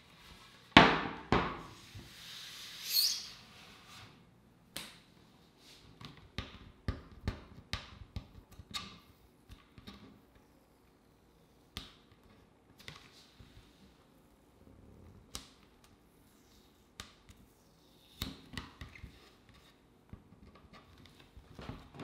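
Wooden skateboard deck handled on a tabletop: a sharp knock as the board is set down about a second in, a brief scrape, then scattered light taps and clicks of fingers and board against the table.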